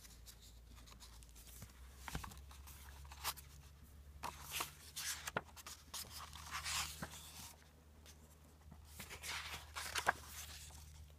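Pages of a hardcover picture book being turned by hand: faint paper rustles and swishes, with a few light clicks and taps as the book is handled.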